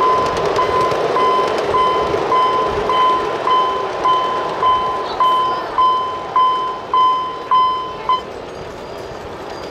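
Electronic warning beeps from a ride-on miniature railway as the passenger train pulls away: one steady pitch repeating evenly a little under twice a second, stopping about eight seconds in.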